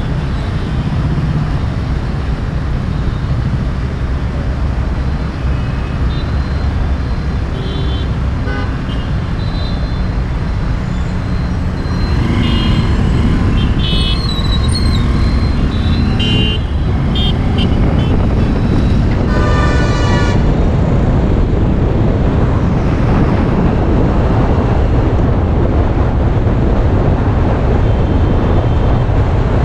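Steady road and wind noise from a vehicle riding through city traffic, growing louder as speed picks up about midway. Vehicle horns toot several times, with a longer horn blast about two-thirds of the way through.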